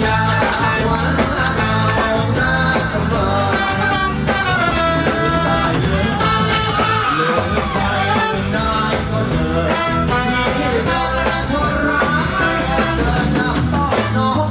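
Live band playing upbeat music with a singer, with brass and electric guitar in the band, picked up by a phone.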